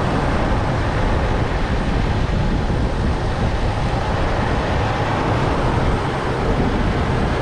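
1998 Toyota Tacoma's 3.4-litre V6 engine idling steadily with a newly fitted alternator that is charging normally.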